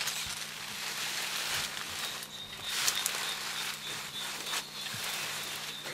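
Leaves and stems rustling and crackling as a young mountain gorilla feeds and shifts about in dense leafy undergrowth, with a thin steady high tone coming in about two seconds in.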